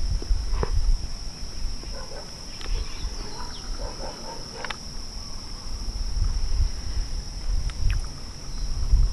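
Wind buffeting the microphone in gusts, with a few faint distant animal calls in the middle.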